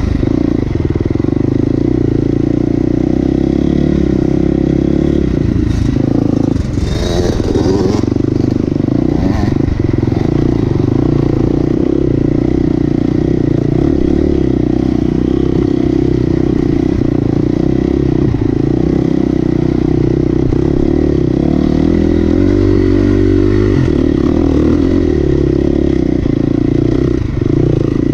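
Off-road vehicle engine running steadily under load, its pitch shifting slightly now and then, with clatter and scraping mixed in.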